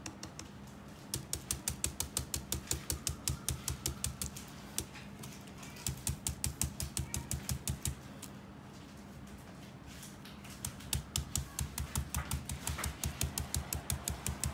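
A dry stencil brush pouncing chalk paint through a plastic stencil onto a coaster: quick, even tapping at about six dabs a second, in three runs with short pauses between.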